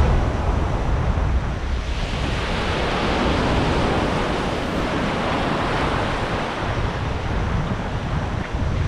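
Sea surf breaking and washing over the shallows: a steady rushing of waves, with wind buffeting the microphone.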